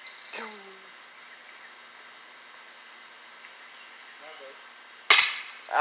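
A single sharp BB gun shot about five seconds in. Before it, a steady high-pitched insect drone.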